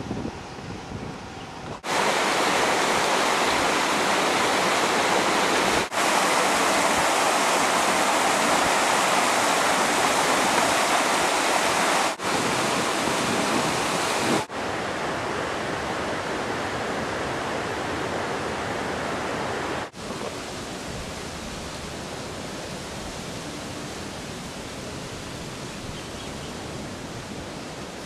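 Steady outdoor rushing noise with no rhythm, heard through several spliced clips: it jumps louder about two seconds in, dips briefly at two cuts, then drops a step at about fourteen seconds and again at about twenty.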